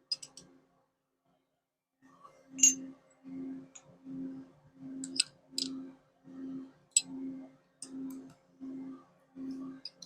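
Backstops being tightened onto a machining vise with a hand tool. About two seconds in, a steady rhythm of short mechanical buzzes starts, roughly one every three-quarters of a second, with sharp metallic clicks between them.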